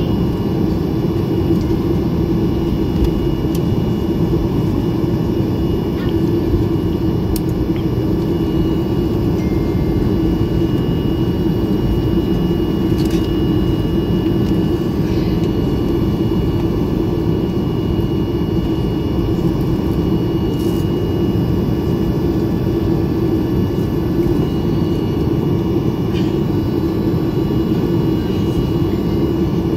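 Cabin noise of a Ryanair Boeing 737's CFM56 jet engines running at taxi power, heard from a window seat inside the cabin: a steady low drone with a thin, steady high whine over it.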